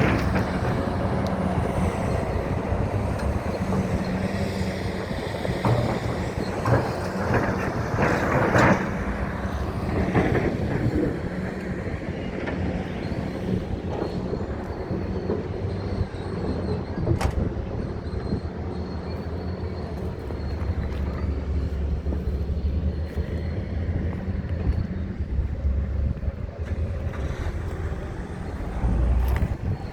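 Heavy diesel excavator engine running steadily under load, with a cluster of clanks and rock clatter between about six and eleven seconds in and a single sharp click later.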